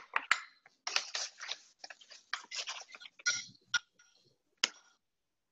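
Kitchen handling noise: a pouch of coconut sugar rustling as a spoon is dug into it and scooped out, heard as short scattered rustles and small clicks with a couple of light clinks, stopping about a second before the end.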